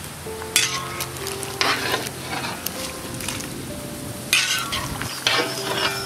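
A ladle stirring Maggi noodles in a large kadai of boiling water, with four scraping strokes against the pan about a second apart at first and then twice near the end, over the hiss and bubbling of the boil.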